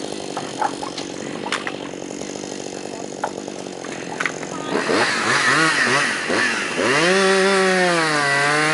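Two-stroke chainsaw running low for a few seconds, then revving up about five seconds in and running near full throttle, its pitch dipping and rising as it trims down a log.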